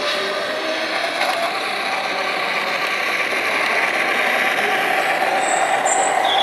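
Model electric multiple unit running along a model railway layout, its motor and wheels working along the track, louder in the second half as it passes close by.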